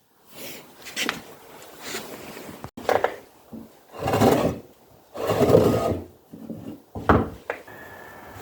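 Hydraulic cylinder gland being worked along the piston rod by hand: a series of scraping and rubbing noises with a few sharp knocks.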